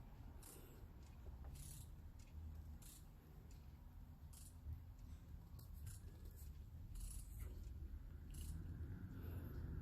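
Faint, irregular clicks of a hand tool turning the crankshaft over by hand to check the timing marks after a timing belt installation, with a low steady hum underneath.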